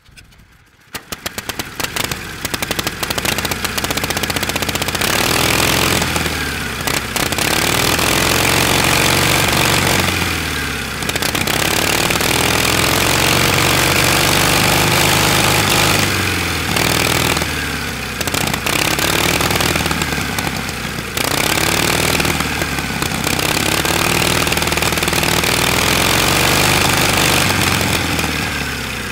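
1912 Indian board-track racer's V-twin engine catching about a second in with sharp individual firings, then running loud and being revved up and let fall back about five times, each run climbing to a steady high speed before dropping.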